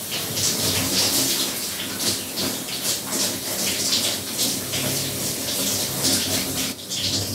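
Water running and splashing in a bathroom, an uneven rushing spray with a low steady hum underneath.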